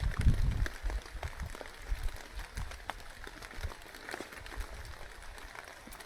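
Rain falling, with many scattered drops ticking sharply close to the microphone. Gusts of wind buffet the microphone, heaviest in the first second.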